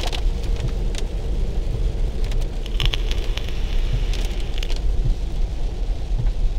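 Car cabin noise while driving: a steady low road and engine rumble with a faint hum, and scattered light ticks in small clusters.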